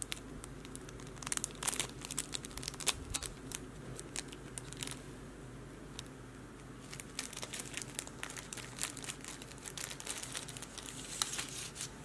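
Clear plastic self-seal gift bag crinkling as a necklace is packed into it, in two bouts of crackling, the second about halfway through, over a steady low hum.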